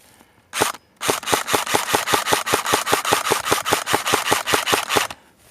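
Airsoft rifle firing: a single shot, then a sustained full-auto burst of about eight shots a second for roughly four seconds.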